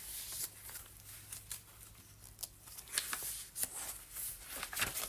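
Paper pages and tucked-in cards of a handmade junk journal rustling and crinkling as they are handled and flipped: a string of short, irregular rustles and flicks, busier in the second half.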